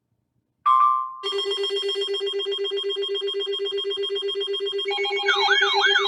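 Electronic emergency alert tones: a short beep, then from about a second in a loud, rapidly pulsing buzzing tone. Near the end a warbling, siren-like tone joins it, sweeping up and down about three times a second.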